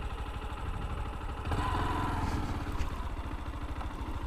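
Motorcycle engine idling with a steady low pulsing. About one and a half seconds in, a louder stretch of noise rises over it for a little over a second.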